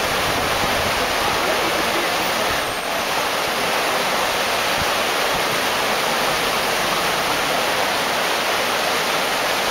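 The River Otter in flood: fast, churning water rushing over and around a line of stones with a steady, unbroken rushing noise.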